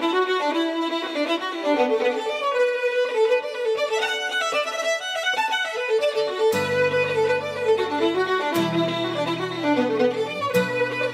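Background music: a fiddle playing a flowing, ornamented melody, joined about halfway through by low held accompaniment notes.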